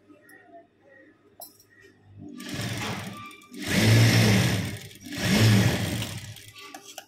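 Industrial sewing machine stitching in short runs from about two seconds in. It is loudest in two bursts, each rising and falling in pitch as the machine speeds up and slows down.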